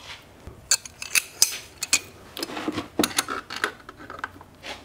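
Irregular metal clicks and clinks of pliers gripping and working at a stuck part on a T10 four-speed transmission's extension housing.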